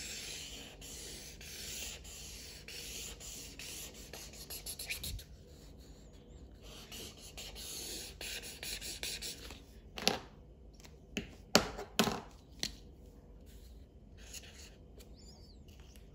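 Felt-tip marker scribbling back and forth on paper in quick repeated strokes, colouring in a large area, louder at first and then fainter. About two-thirds of the way through, a handful of sharp clicks and knocks, the loudest sounds here.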